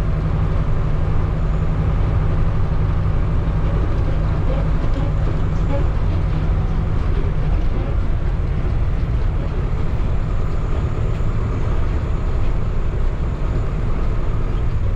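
Converted micro-bus motorhome driving, its engine and road noise a steady low rumble.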